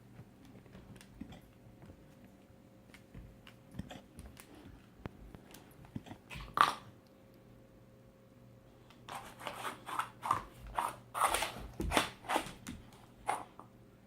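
A dog with hiccups: one short sharp hic about six and a half seconds in, then a rapid run of short clicking sounds for about four seconds.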